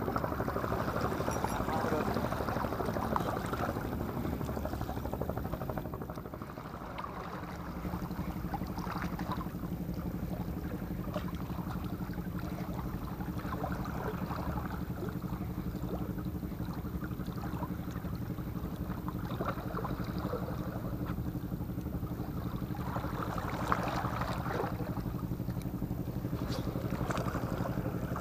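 A steady, low engine drone from a boat, with wind and water noise on the microphone. The drone sets in about eight seconds in and holds steady.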